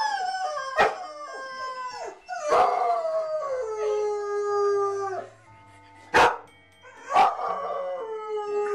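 A dog howling: two long howls, each dipping in pitch at the start and then held on one note for two to three seconds, with short sharp cracks between them. In the first two seconds a rubber chicken toy squawks as the dog mouths it.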